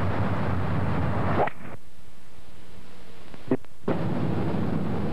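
Wind buffeting an outdoor microphone, a heavy low rumble that cuts off abruptly about a second and a half in to a quieter hiss with a faint hum. A sharp click comes about three and a half seconds in, and the wind rumble starts again about a second later.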